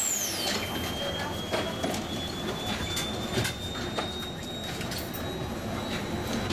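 Tram running on its rails: a steady high whine that slowly rises in pitch over a rumble, with scattered knocks from wheels and track. A high whistle falls away in the first half second.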